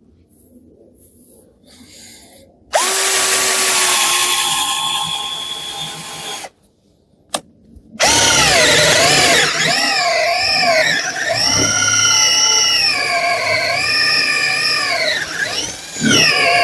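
Parkside PBSA 12 D4 12 V cordless drill driver drilling a bigger hole. Its motor whines steadily for about four seconds and stops. About a second later it starts again and runs longer, its pitch rising and falling over and over.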